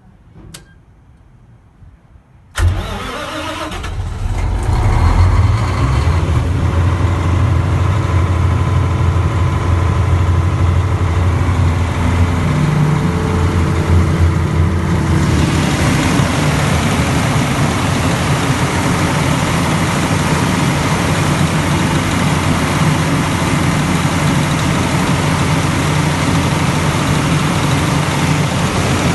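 Cummins C550D5E 500 kVA diesel generator set starting up about two and a half seconds in, then running steadily at a constant speed. About halfway through its sound turns brighter and hissier.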